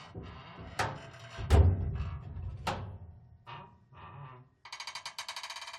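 Metal flap creaking on its hinge, with several sharp knocks as it shuts. The loudest is a deep thud about a second and a half in. Near the end comes a fast, stuttering creak.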